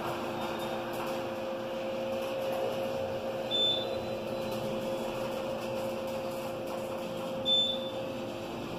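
Elevator car travelling, with a steady hum that fades near the end. Two short high beeps about four seconds apart, as it passes floors.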